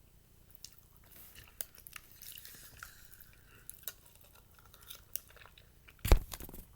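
Jello squelching, with scattered soft wet clicks and squishes. A louder bump comes near the end.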